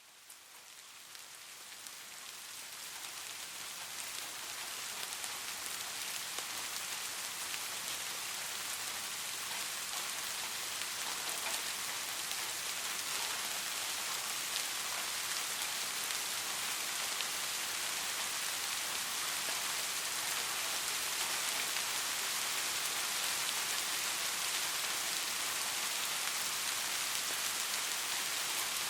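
Steady, gentle rain falling on a surface, a dense even pattering of drops, fading in over the first few seconds and then holding steady.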